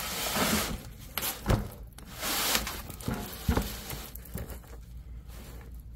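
Rustling and scraping with a few light knocks: handling noise as a person shifts under the truck and reaches up toward the oil drain plug. Two short rushes of rustling come near the start and about two seconds in, then it settles.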